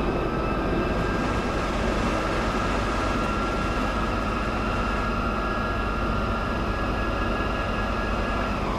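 Freight train running through the station: a steady rumble with a high, steady whine over it that slides down in pitch near the end.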